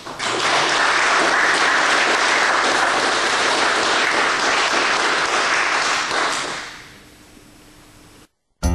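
A group of people applauding. The clapping starts at once, holds steady for about six seconds, then dies away.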